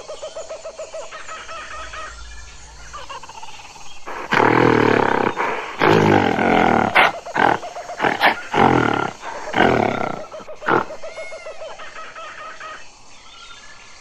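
Gorilla sound effect: a run of loud roars and grunts, one after another, starting about four seconds in and stopping a few seconds before the end.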